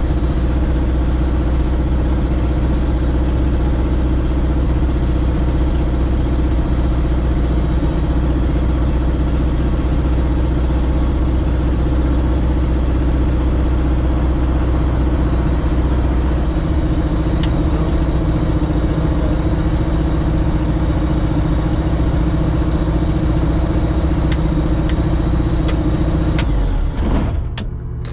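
Light-aircraft piston engine idling steadily, heard from inside the cockpit. Near the end it winds down and stops.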